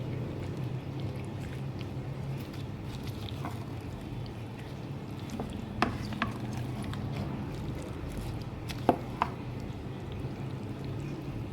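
Kitchen food-preparation sounds: soft wet handling of food, with a few sharp clicks or taps of a utensil or container over a steady low hum.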